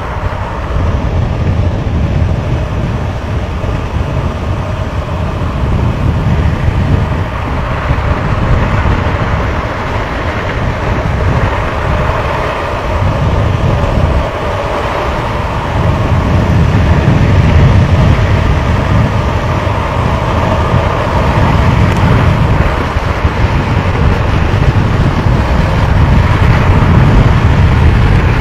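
Wind rushing over the microphone together with longboard wheels rolling on asphalt at downhill speed: a loud, unbroken rumble that swells and eases in waves and grows louder in the second half.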